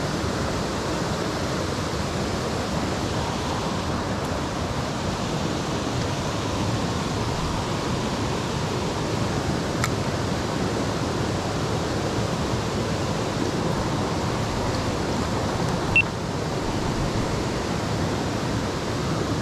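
Steady rush of stream water flowing over rocks, with one brief click a few seconds before the end.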